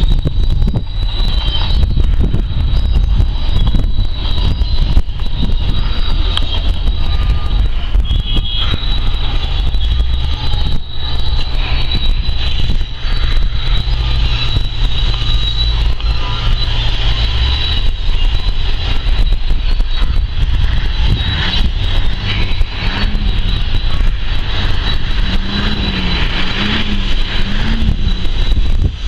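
Crushing and screening plant machinery running steadily: a loud low rumble with a thin, steady high whine over it, and a wavering tone rising and falling several times near the end.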